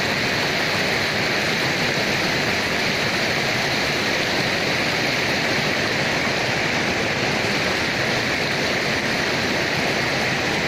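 Mountain river rushing over boulders in small cascades: a steady hiss and splash of white water.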